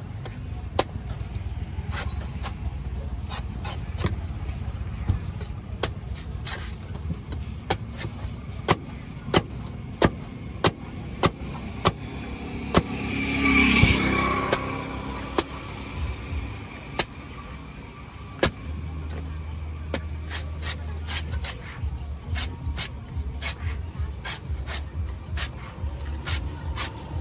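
Cleaver chopping and shaving the husk of a young coconut against a wooden block: sharp knocks at an irregular pace, about one or two a second. Under them runs a steady rumble of traffic that swells briefly near the middle.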